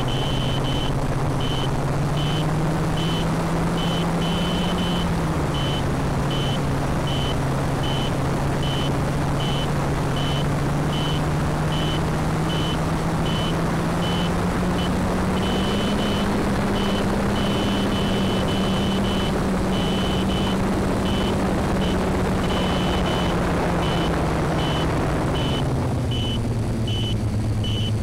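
FPV quadcopter's motors and propellers running with wind rushing past, the motor hum rising and falling slowly in pitch as the throttle changes. A high beep repeats about twice a second throughout.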